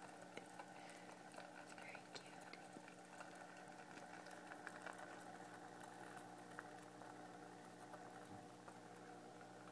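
Faint bubbling of water in a brackish aquarium over a steady low hum, with small scattered ticks.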